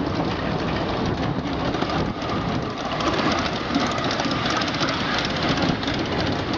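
Ride-on miniature railway train running along its small track, heard from aboard: a steady rattle of wheels on the rails, with a faint steady whine in the middle.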